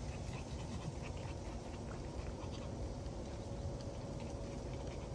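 Small dogs panting softly, with faint scattered ticks, over a low steady rumble.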